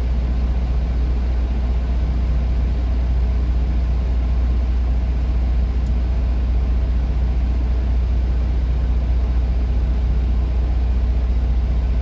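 Steady low rumble, unchanging throughout, with a faint hiss above it.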